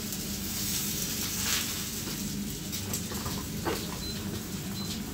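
Chicken mince frying in a pan: a steady sizzle and crackle, with a couple of short clatters from the spatula and a steady low hum underneath.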